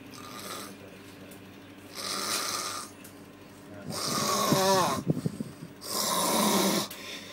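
A person snoring heavily: three loud, rasping snore breaths roughly two seconds apart, the middle one breaking into a wavering, fluttering rattle.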